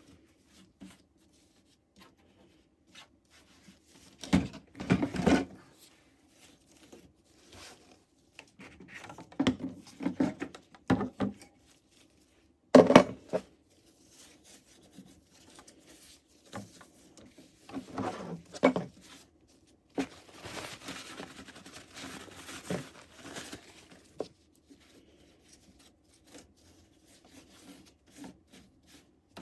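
A disinfecting wipe being rubbed and scrubbed over the housing of an Ecopro disc repair machine. It comes in irregular bursts of rubbing and rustling, with a sharp knock about halfway through.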